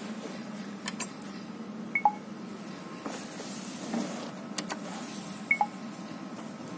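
Slot machine giving a short falling two-note electronic beep twice, about three and a half seconds apart, with a few light clicks over a steady low background hum.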